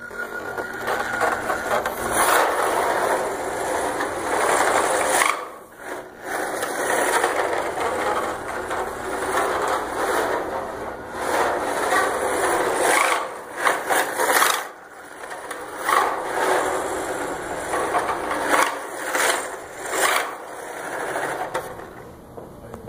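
Homemade two-wheel-drive electric RC drift truck running rough across carpet: its motor and gears rattle and its tyres scrub as the throttle comes and goes, the sound swelling and dropping out several times.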